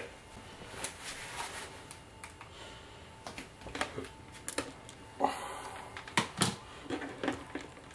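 Handling around a plastic tub full of brine and ice while a thermometer probe is put in: irregular light clicks and knocks, about one a second, with a few louder knocks in the second half.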